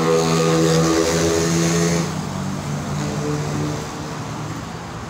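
Small engine of a portable drum concrete mixer running steadily at a constant speed, its pitch stepping slightly a few times and growing weaker after about two seconds.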